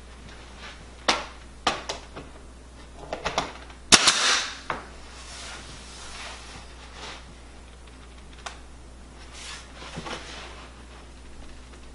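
Pneumatic nail gun firing nails into wooden window casing trim. There are several sharp shots at irregular spacing, the loudest about four seconds in, followed by a short hiss of air.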